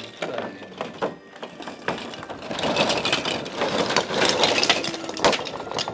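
Christmas ornaments and their packaging being handled: a run of clicks and knocks, with a denser spell of rustling and rattling in the middle.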